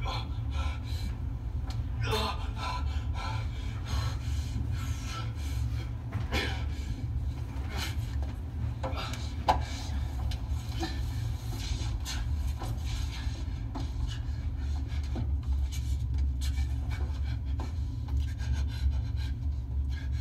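Soundtrack of a dark thriller scene played back on monitor speakers: a steady low rumble under scattered rustling, scraping and breathing sounds, with a sharp knock about halfway through.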